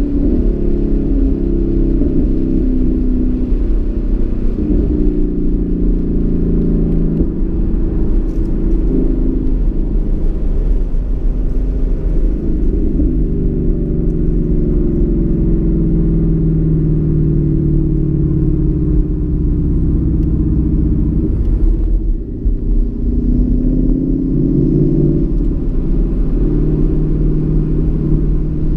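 2015 Mustang GT's 5.0-litre V8 under hard track driving, heard from inside the cabin: the engine note repeatedly climbs and falls with throttle and gear changes, over a steady low rumble, with a brief lift about three-quarters of the way through.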